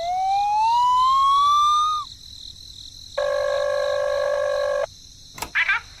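A pitched, siren-like tone rising steadily in pitch for about two seconds, then, after a short gap, a steady horn-like tone held for about a second and a half. A click comes near the end.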